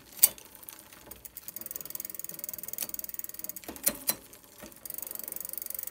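Bicycle rear freewheel ticking rapidly as the wheel spins on the stand, with a couple of sharper clacks, about a quarter second in and near four seconds, as the chain shifts across the sprockets under a non-indexed friction down tube shifter. The ticking grows steadier and a little louder near the end.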